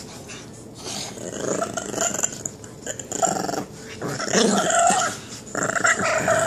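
Pug growling in several separate bouts while it mouths and bites at a hand in play.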